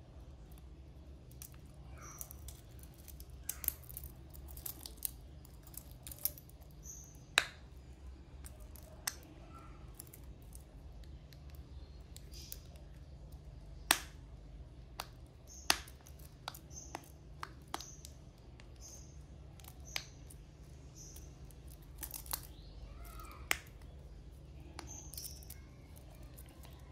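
Scattered sharp metal clicks and taps from a stainless steel wristwatch being handled while its press-fit caseback is pushed back on, with the steel bracelet links clinking; a few clicks stand out much louder than the rest.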